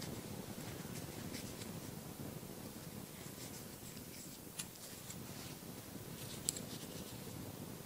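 Faint rustling and light clicks of a crochet hook working wool yarn, with two sharper ticks about four and a half and six and a half seconds in, over low room noise.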